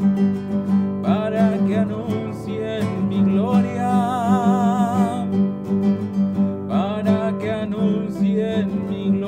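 Acoustic guitar strummed steadily, with a man singing long wavering notes over it, coming in about a second in and again near the end.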